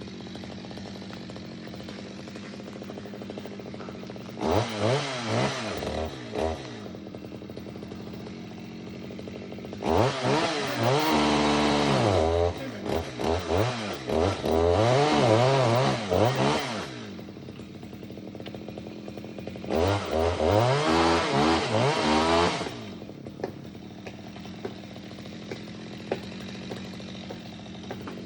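Stihl chainsaw idling, revved to high speed in three bursts with a wavering pitch, dropping back to idle between them. The second burst is the longest, about seven seconds.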